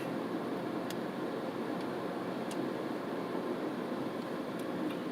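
Steady running noise of a car heard from inside its cabin, with a couple of faint clicks.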